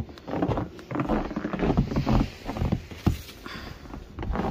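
Repeated footsteps trudging through deep fresh snow on a wooden deck, each step a short, uneven swish with a low thud.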